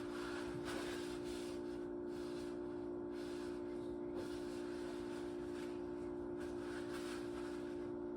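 A small kitchen appliance running with a steady, even hum that does not change.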